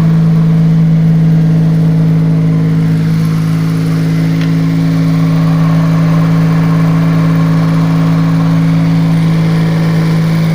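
Jaguar XK140's 3.4-litre straight-six engine idling steadily, running on one of its first starts after restoration.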